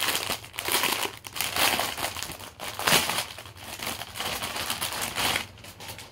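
Clear plastic bag crinkling in a string of rustles as it is opened and a folded t-shirt is pulled out of it; the rustling stops about five and a half seconds in.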